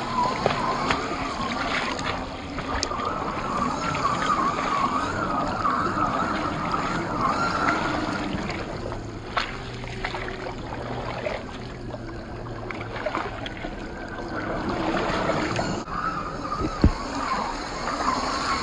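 1/10-scale RC crawler's 540 brushed motor whining, its pitch wavering with the throttle, as the tyres churn and splash through muddy floodwater. A couple of sharp knocks stand out, the loudest near the end.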